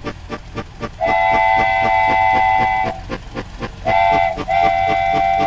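Train whistle sounding a chord of several tones: one long blast, a short one, then another long one near the end, over a steam locomotive chuffing steadily at about five beats a second.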